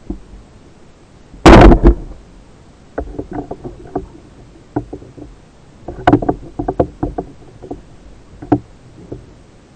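Underwater sounds from a spearfisher's camera: a loud rushing burst about a second and a half in, followed by a run of irregular clicks and knocks from the diver's gear and movement in the water.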